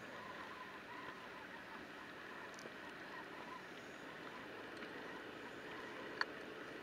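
Faint, steady wash of river water moving along the side of a boat, with one sharp click about six seconds in.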